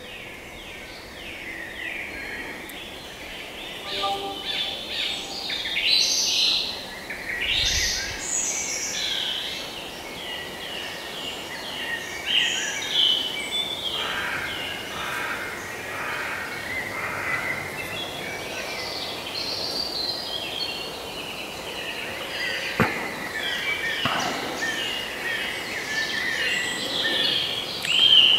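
Several birds singing at once, a busy chorus of chirps and quick runs of repeated falling notes. Two sharp clicks sound a little after the middle.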